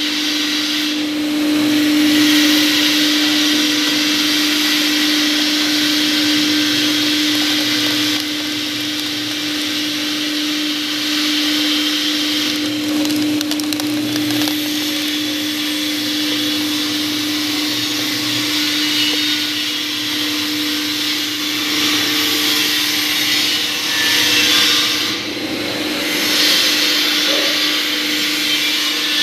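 A 2 HP twin-shaft cardboard shredder running, its electric motor giving a steady hum under the whirr of the turning cutter discs. Corrugated cardboard is being chewed and torn by the cutters, heaviest about halfway through and again near the end.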